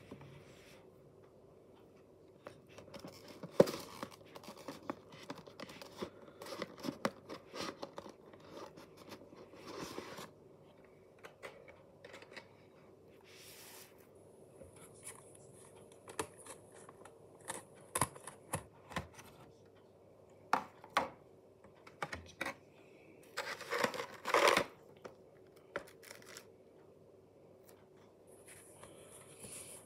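Clear plastic tray and cardboard box of a model airliner being handled: irregular rustling, crinkling, clicks and scrapes as the model is taken out of its packaging, with a few louder handling bursts and a faint steady hum underneath.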